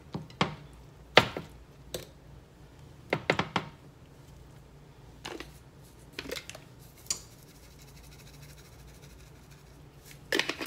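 Kitchen handling sounds: short sharp knocks and clinks of a glass baking dish and seasoning containers as raw chicken breasts are turned over and seasoned, the loudest knock about a second in and a quick run of taps about three seconds in. More clicks near the end as a seasoning bottle is handled and shaken.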